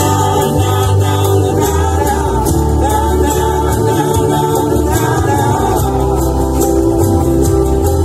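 Live acoustic band performing a song: strummed acoustic guitars with a sung vocal melody over a steady low bass line.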